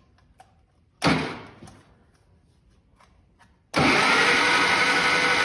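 Electric starter of a Farmall Lo-boy tractor turning the four-cylinder engine over with the spark plugs out: a short bump about a second in, then a steady whirring crank that starts about two-thirds of the way through, even with no compression strokes.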